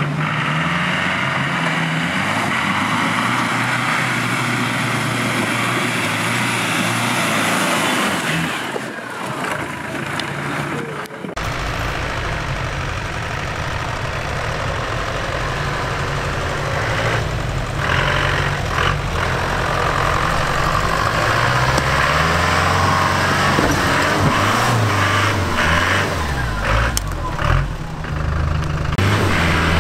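Land Rover Defender off-road engine running. About eleven seconds in the sound changes abruptly to a deeper engine note that rises and falls.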